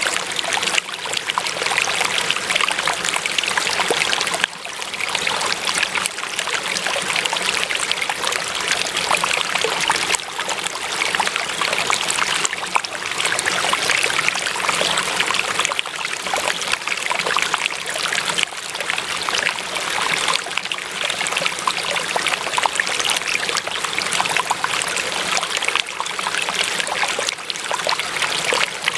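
Running water, a stream flowing and trickling steadily, with a fine splashy texture and small swells and dips in loudness.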